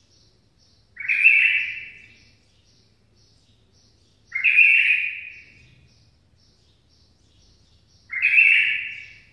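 A caged songbird singing the same loud, short phrase three times, about every three and a half seconds, with faint high chips repeating about twice a second in between.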